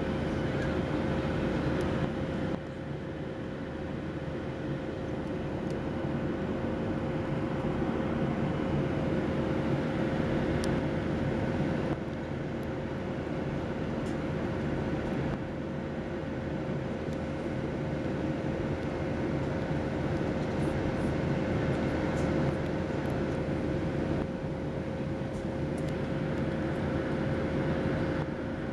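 Steady in-flight cabin noise of a Boeing 737-700 heard inside the cabin: the drone of its CFM56-7B turbofan engines and the rush of air past the fuselage, with a constant mid-pitched hum tone on top.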